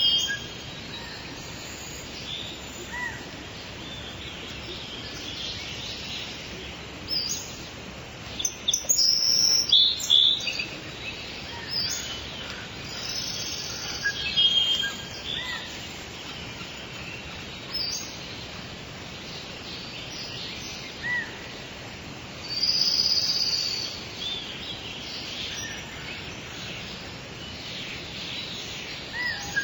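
Several birds chirping and singing in short bursts over a steady hiss of rainfall.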